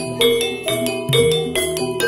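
Gamelan music for a jathilan dance: bronze keyed and gong-chime instruments struck in a quick repeating pattern, ringing over low drum strokes.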